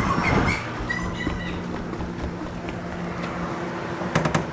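Steady low hum of a vehicle, with a few short high chirps in the first second and a half and a few sharp clicks near the end.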